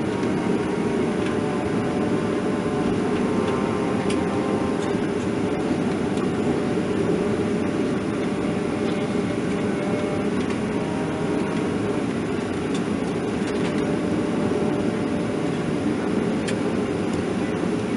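Steady cabin rumble inside a Boeing 737-400 taxiing slowly: its CFM56-3 engines at low taxi thrust together with the air-conditioning rush, heard from a window seat over the wing.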